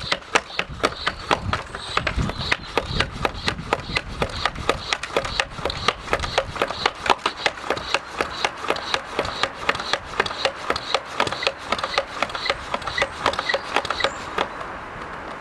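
Hand pump of a Streetwize portable pressure washer worked up and down to pressurise its water tank: a rubbing click on every stroke in a quick, steady rhythm that stops near the end.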